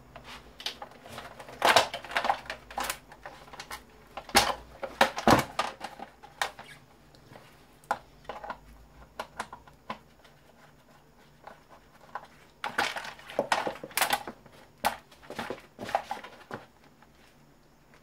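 Plastic electric-fan parts clicking and knocking as the fan is handled and pried apart by hand, in three clusters with a quieter stretch in the middle.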